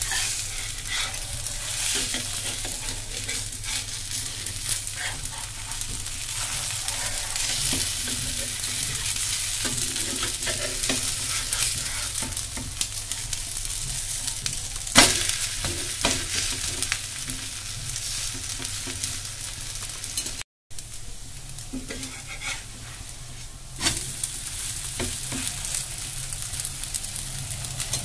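Grated bottle-gourd and vegetable pancake sizzling in oil in a nonstick frying pan, with a steady hiss throughout. A metal spatula scrapes and clicks against the pan as the pancake is turned over, with one sharp knock about halfway through.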